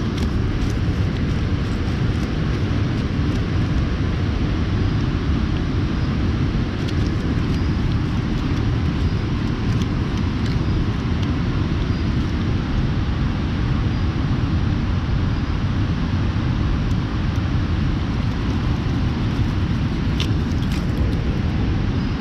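Steady low rushing roar of water pouring down a dam spillway, with a few light clicks.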